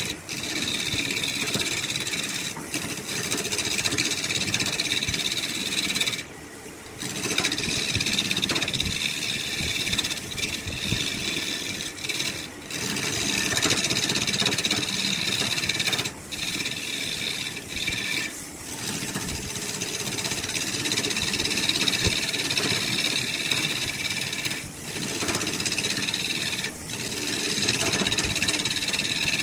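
Wood lathe running while a hand-held turning tool cuts into a spinning laminated wood blank, giving a steady rough scraping hiss over the machine's hum. The cutting breaks off for moments when the tool eases off the wood, most clearly about six seconds in, then resumes.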